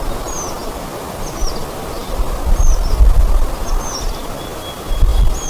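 A bird repeating one short, high call about once a second over a steady rushing background noise, with a few low rumbles, loudest around the middle and near the end.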